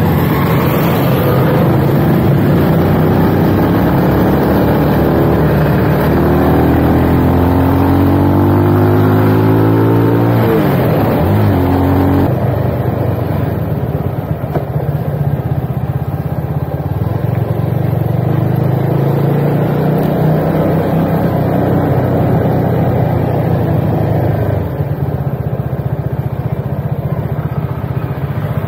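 Motorcycle engine running on the move, its pitch climbing in steps for several seconds, then dropping sharply about ten seconds in. After that it settles into a steady drone.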